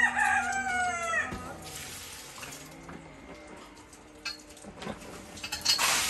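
A rooster crows once at the start, a call of about a second that falls slightly in pitch at the end. Near the end come several sharp clattering knocks.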